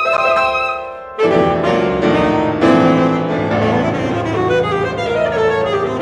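Live contemporary classical chamber music for a solo instrument and piano. A held high note fades over the first second, then a loud, dense passage of many notes starts, low piano notes included.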